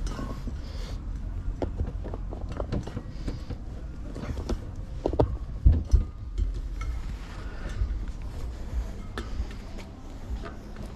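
Irregular knocks, clicks and rubbing as a new rear dirt-bike tire is pushed onto its soap-lubed rim by hand, with a few heavier knocks about five to six seconds in. A steady low hum sits underneath.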